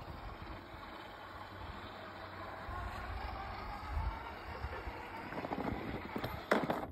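Parkside robot lawn mower running steadily as it moves onto its charging dock, with a few sharp knocks near the end.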